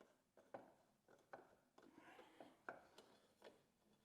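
Faint, irregular clicks of a screw being turned in by hand with a screwdriver, drawing a plastic panel down against the floorboard.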